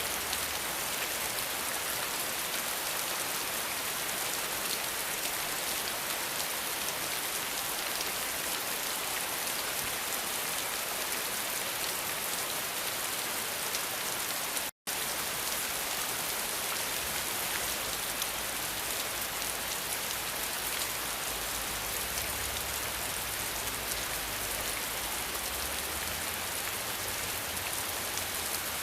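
Steady heavy rain falling on surfaces: a dense, even hiss with the patter of individual drops. Near the middle it cuts out completely for a split second, then resumes unchanged.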